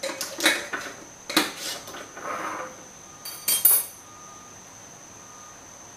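Clinks, knocks and scrapes of a glass mason jar and its metal screw lid being closed and set down on a granite counter. A brighter ringing metallic clink comes about three and a half seconds in, after which the handling stops.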